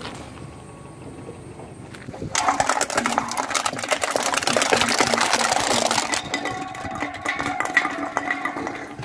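Car tyre rolling over a row of aluminium drink cans and crushing them one after another: a dense crackling and crunching of metal that starts about two seconds in, followed by sharper, more scattered metallic crackles toward the end.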